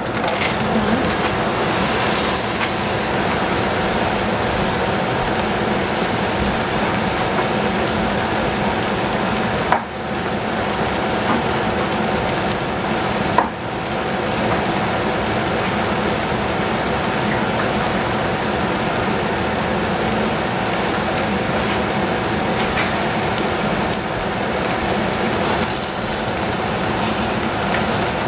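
Steady sizzling of wet leafy greens and tomato cooking in a stainless steel pot on a gas stove, with a faint steady hum underneath.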